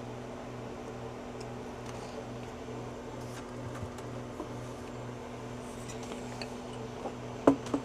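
Steady low hum of a running freeze dryer, with a faint regular pulsing to it. A couple of sharp clicks near the end.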